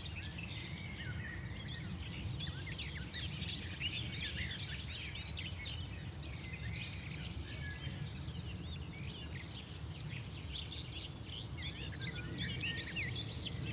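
Many small birds chirping at once in a dense, overlapping chorus of short chirps, busiest near the end, over a steady low background rumble.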